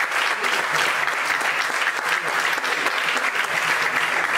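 Audience applauding steadily: dense, continuous clapping from a large crowd.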